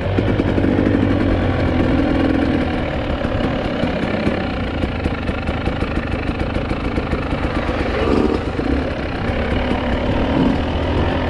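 GasGas EC 300 two-stroke enduro motorcycle engine heard from the rider's seat, running at low to moderate revs with the throttle opening and closing as it rides a rough dirt trail.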